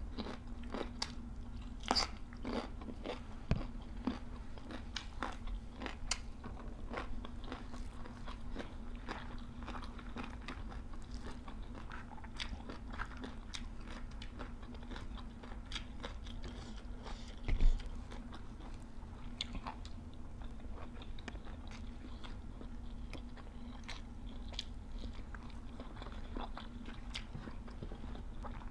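Close-up chewing and crunching of raw vegetables and leafy greens, with many crisp bites and wet mouth sounds. A faint steady hum runs underneath, and there is one louder dull thump a little past halfway.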